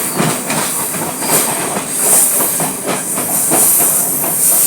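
Ocean surf washing on a beach: a steady hiss of breaking water with many irregular small clicks and crackles.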